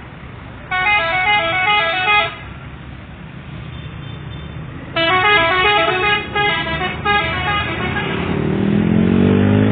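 Indonesian bus 'telolet' musical air horn, several trumpets playing a stepping tune, sounded twice: a short blast about a second in, then a longer one from about halfway to the end with a brief break. Near the end a low engine note rises steadily in pitch.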